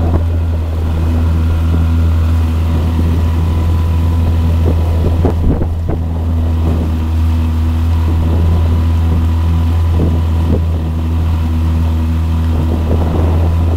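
Motorboat engine running at a steady speed, a loud low drone, with a couple of brief knocks about five and ten seconds in.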